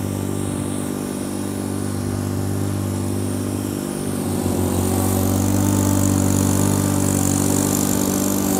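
Ventrac compact tractor's engine running at a steady speed as it pushes wet snow with a front leaf plow, growing louder about halfway through as it comes closer.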